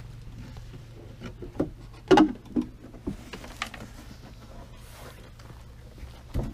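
Knocks and clatter of a 1987 Kawasaki JS440 jet ski's engine cover being unlatched and lifted off the hull, the loudest knock about two seconds in, then a few lighter knocks.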